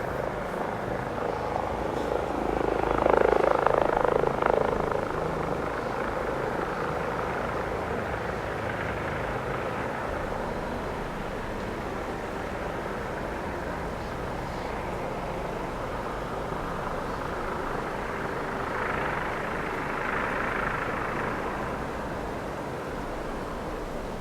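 Helicopter flying, a steady whirring rush that grows louder briefly a few seconds in and again near the end.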